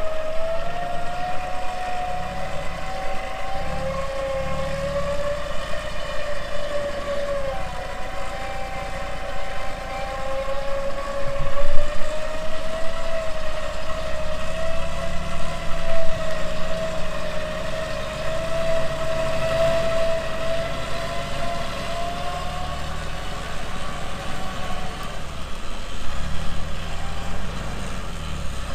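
Electric winch motor whining steadily under load as it pulls a bogged 4x4, its pitch sagging and recovering as the strain changes, over the low rumble of the vehicle's engine running.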